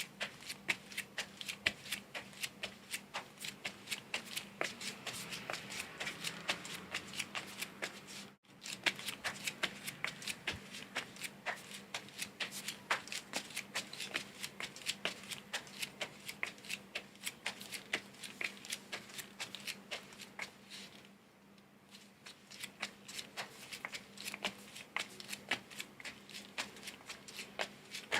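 Footsteps in flip-flops: a steady run of light clicks, about three a second. There is a brief total silence about eight seconds in, and a quieter stretch around twenty-one seconds.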